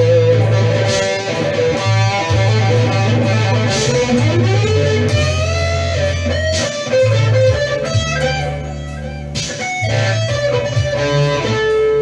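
Solid-body electric guitar playing a blues, single notes with upward string bends near the middle, over a steady, stepping bass line.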